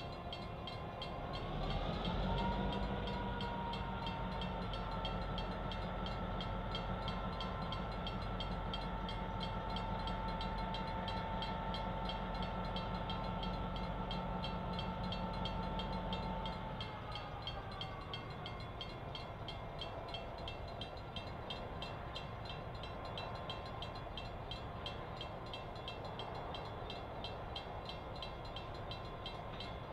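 EMD GP9 locomotive's two-stroke diesel engine throttling up about a second and a half in, as it works a string of tank cars. It holds a higher, steady pitch with a deep rumble, then winds back down toward idle after about sixteen seconds.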